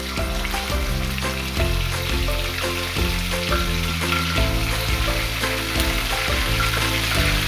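Food sizzling as it fries in hot oil, under background music with a bass line and melody.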